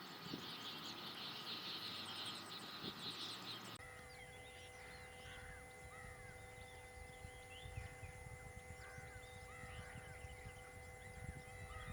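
Wild outdoor ambience. For the first few seconds a steady high buzz of insects runs with a few chirps. After an abrupt cut come many short bird calls over a low rumble and a faint steady hum.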